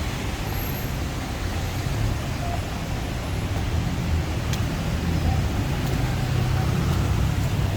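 Steady city road traffic: a continuous low rumble of cars and buses.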